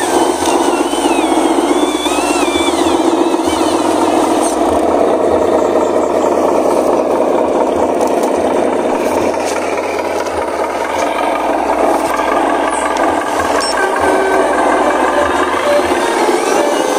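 Radio-controlled model Mitsubishi Fuso and Hino 500 dump trucks loaded with mud, driving through mud. A steady whirring and rattling drive noise rises and falls slightly in pitch.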